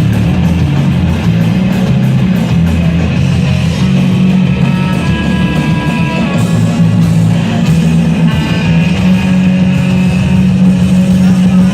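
Live rock band playing loud with no vocals: electric guitar to the fore over bass and drums.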